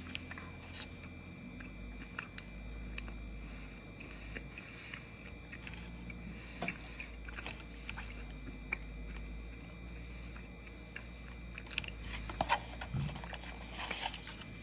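A person chewing a mouthful of soft blueberry muffin close to the microphone: small wet mouth clicks and smacks over a steady low hum, coming more often near the end.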